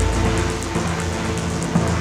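Electronic music track: sustained low bass notes under a steady high ticking hi-hat, with the bass line shifting about halfway through.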